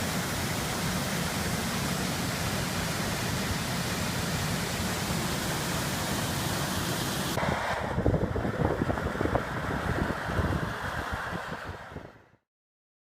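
Stream water rushing steadily. About seven seconds in the sound turns rougher and closer, with uneven low rumbling and short knocks, then cuts off abruptly near the end.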